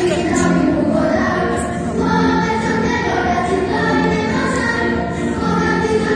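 Children's choir singing a song in chorus with musical accompaniment, a steady run of held, changing notes.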